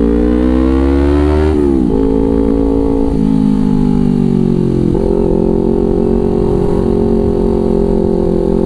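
Kawasaki Ninja 250 FI parallel-twin with a Villan New ZX1 aftermarket exhaust, ridden under acceleration. The revs climb for about a second and a half, drop at a gear change, climb again and drop at a second shift around three seconds, then step up slightly near five seconds and hold steady at cruise.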